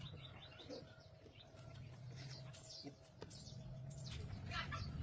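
Faint bird chirps, short and scattered, over a low steady hum.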